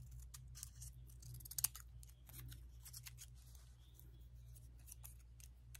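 Faint scissors snipping paper: a scattering of small clicks, with one sharper click about one and a half seconds in, over a low steady hum.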